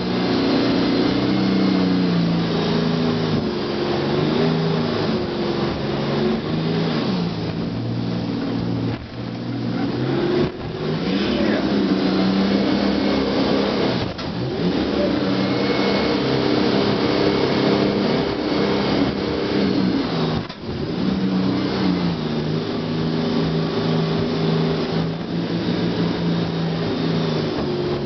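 Twin Yanmar engines of a jet boat running hard under load, the pitch rising and falling as the throttle changes while it powers up a rapid, over a steady rush of noise. The engine sound dips briefly twice, about a third of the way in and again past the middle.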